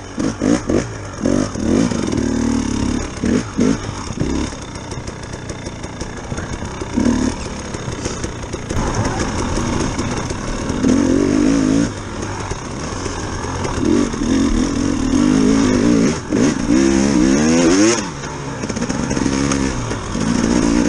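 Dirt bike engine revving up and down over and over as the rider works the throttle along a rocky, rooty trail, the pitch climbing and dropping every second or two.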